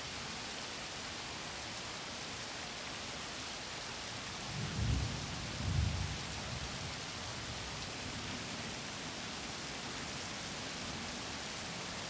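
Steady rain, an even hiss, with two short low rumbles of distant thunder about five and six seconds in.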